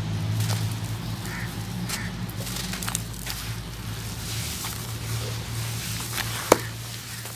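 Hands crushing and crumbling dry cement-sand clumps in a bucket: gritty crunching and crackling, with one sharp crack about six and a half seconds in, over a low steady hum.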